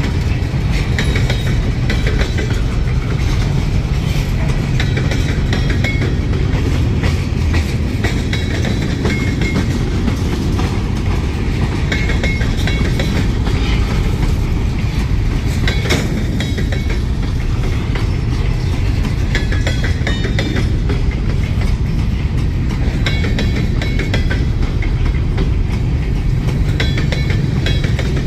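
Freight train of boxcars and covered hopper cars rolling past at close range: a steady low rumble of steel wheels on rail, with clicking over the rail joints and brief high-pitched squeals now and then.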